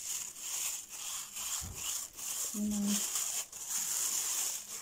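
Thin plastic bag crinkling and rustling as it is pulled off risen yeast dough, with many small crackles. A short pitched voice-like sound is heard about two and a half seconds in.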